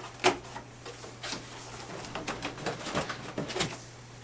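Corrugated cardboard display parts being handled: a sharp tap about a quarter second in, then a run of small knocks, taps and scuffs.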